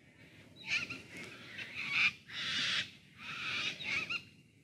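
Bird calls: a run of about six short calls, each roughly half a second long, following one another every half second to a second.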